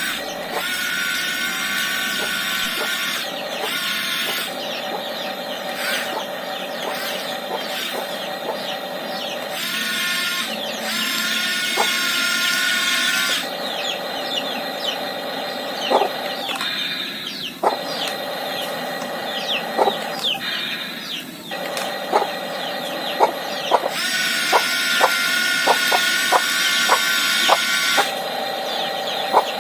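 Electric gear motors of a radio-controlled toy excavator whining as the arm and bucket move, with a steady pitch that shifts between passages. Sharp clicks and knocks come more often in the second half.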